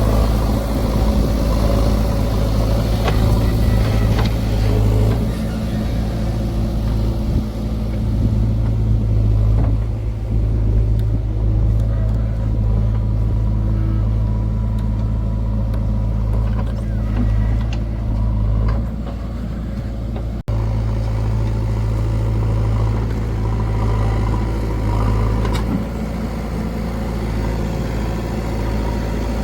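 Heavy diesel engine running steadily at low revs, its level shifting a little as it works. The sound breaks off for an instant about two-thirds of the way through, then carries on.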